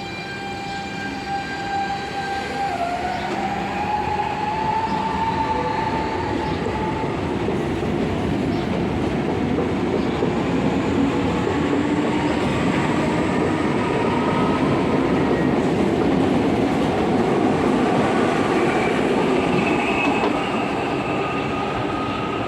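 CPTM Série 2000 electric multiple unit pulling away, its original traction equipment whining in steady tones that climb in pitch as the train gathers speed, over a running rumble that grows louder as it accelerates.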